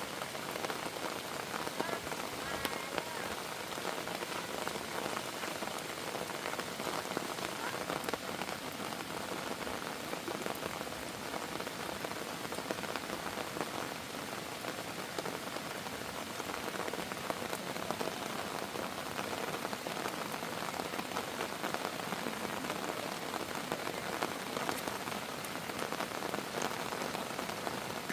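Rain falling steadily, an even hiss dotted with many small drop impacts.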